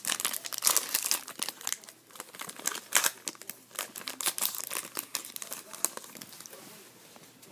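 Trading cards being handled and flipped through: a quick run of crisp rustles, clicks and crinkles that thins out about six seconds in.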